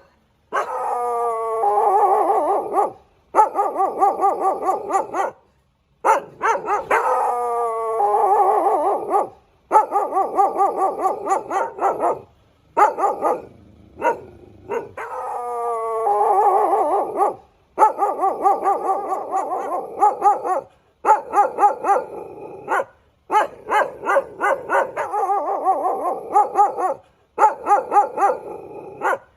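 Dog barking and yapping in quick runs, with falling, howl-like whines at the start of several runs. The runs stop and start abruptly with short silences between them, and similar stretches repeat, as in an edited sound-effect loop.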